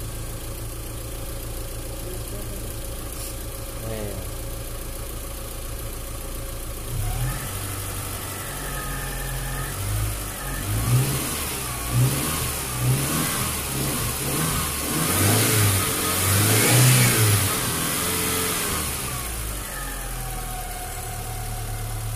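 Freshly overhauled Mitsubishi van engine idling steadily, then revved in a series of throttle blips from about seven seconds in, rising and falling in pitch, before settling back to idle near the end.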